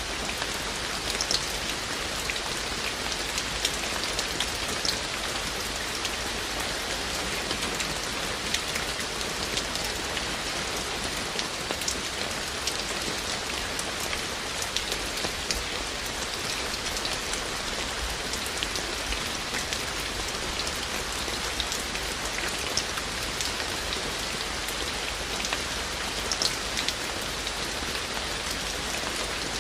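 Steady rain falling, an even hiss with many scattered louder raindrop taps close by.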